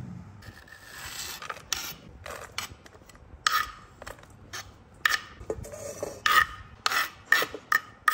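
A run of about ten short scraping and rasping strokes of kitchen work on chopped pork, irregularly spaced. They come closer together and louder in the second half.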